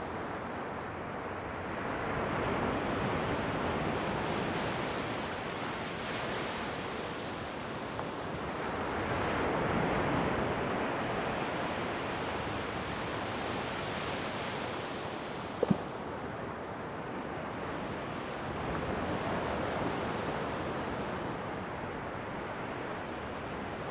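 Ocean waves breaking and washing ashore, the surf swelling and easing every several seconds. A single brief sharp click a little past halfway.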